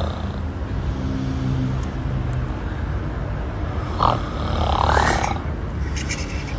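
A person snoring loudly: a low rumbling snore, then a louder, rougher snort from about four to five seconds in, over a steady low hum.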